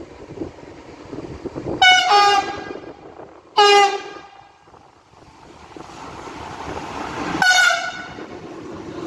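Siemens Vectron (class E193) electric locomotive running light through a station and sounding its horn in three short blasts: about two seconds in, again a second and a half later, and once more near the end as it draws level. The noise of the locomotive passing on the rails grows under the last blast.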